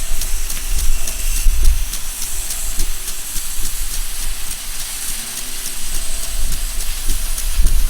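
Irrigation water spraying: a steady hiss with many fine, rapid ticks, over a low rumble that grows louder near the end.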